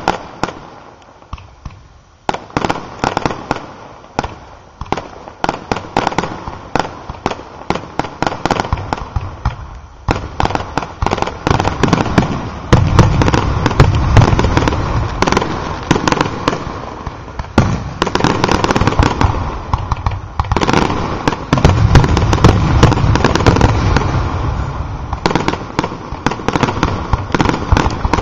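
Fireworks display: aerial shells bursting in quick succession with sharp cracks and crackling. The bursts thicken into a dense, heavy rumbling volley from a little before halfway through.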